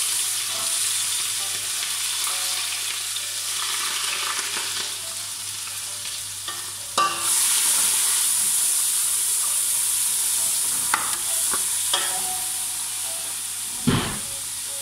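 Garlic and chopped vegetables frying in hot oil in a pot, a steady sizzle while being stirred. The sizzle surges about seven seconds in as more is tipped in, and a few sharp knocks come near the end.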